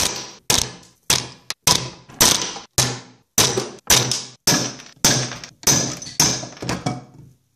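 A rapid series of sharp cracks, about two a second: 3D-printed test bars snapping one after another as an increasing sideways load breaks them.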